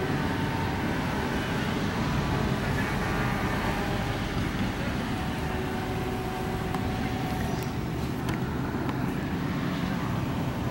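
Street traffic: a steady engine rumble with a low hum as cars drive past.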